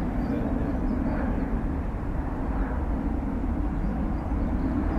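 Boeing 777-300's jet engines running at taxi power, a steady low rumble.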